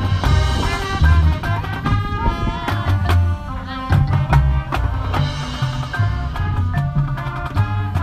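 Marching band playing: a brass melody over drums and a strong bass line, in a steady beat.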